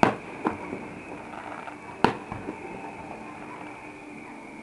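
Distant aerial firework shells bursting: a sharp bang at the start, another about half a second later and a third about two seconds in, each followed by smaller pops.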